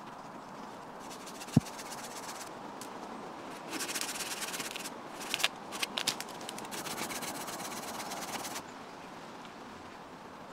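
Hand pruning saw cutting through a branch: a fast run of rasping strokes lasting about five seconds, with a few sharp cracks partway through. A single dull thump comes earlier, about a second and a half in.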